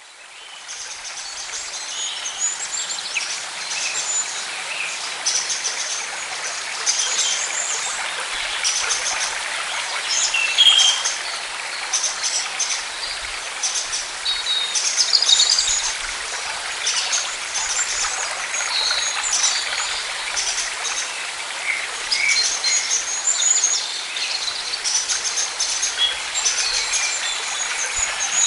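Birds chirping and singing over a steady hiss of rural outdoor ambience, fading in over the first couple of seconds.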